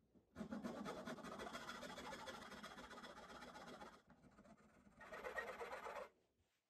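Hand file rasping back and forth in the corner of a jigsaw-cut notch in plywood, cleaning up the cut. There is a longer spell of filing, a brief lull about four seconds in, then a shorter spell that stops near the end.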